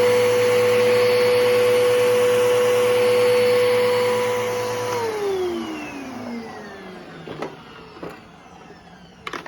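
Bissell Powerforce Helix Turbo upright vacuum running steadily with a constant whine, then switched off about five seconds in: the motor winds down with a falling whine. A few sharp clicks follow near the end.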